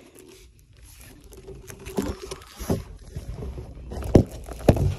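Handling noise: rustling and scraping with a few sharp knocks, louder toward the end, as a large printed cardboard Easter sign is picked up and moved about.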